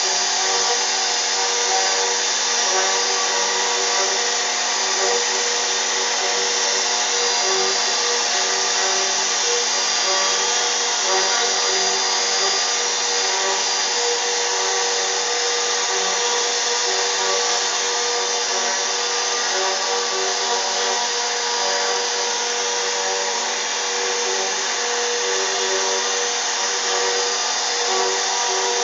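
CNC router spindle running steadily with a constant whine of several held tones over a wide hiss, cutting into wood.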